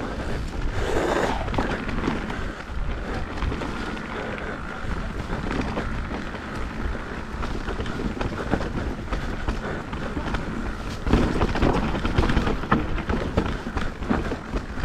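Mountain bike riding over a dirt trail: tyres on dirt, chain and frame rattling and knocking, with wind on the microphone. The rattles and knocks get louder about eleven seconds in.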